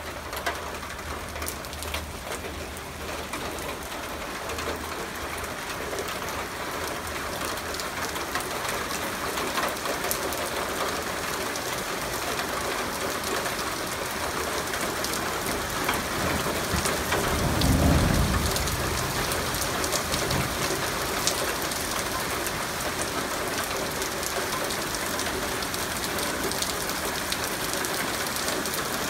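Heavy rain mixed with hail pelting down, a dense steady hiss peppered with sharp ticks of hailstones striking, growing slightly heavier. A low rumble of thunder swells and fades about two-thirds of the way through.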